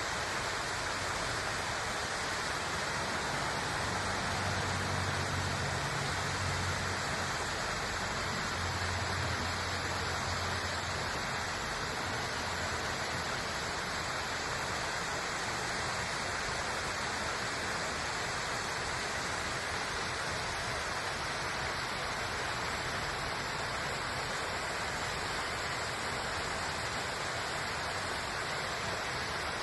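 Small waterfall of spring meltwater pouring over rocks into a river: a steady rush of falling water. A low hum sits under it for several seconds, starting about four seconds in.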